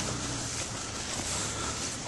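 Footsteps on a snow-covered street, a soft regular patter over steady outdoor background noise.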